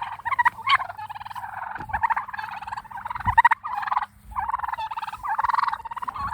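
Domestic heritage turkeys gobbling, one rapid rattling gobble after another with calls overlapping, from toms in a small flock.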